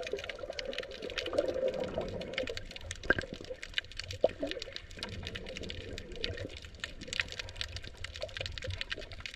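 Underwater reef sound: dense, irregular crackling clicks with a couple of louder snaps among them, over a low steady water rumble. The clicks are parrotfish and other coral-eating fish crunching on coral.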